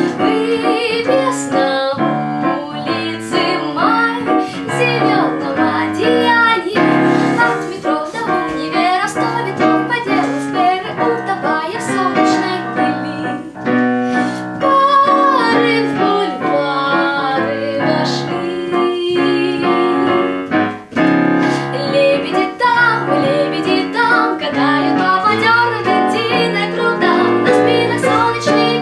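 A young woman singing in Russian to piano accompaniment, the piano playing chords under her melody.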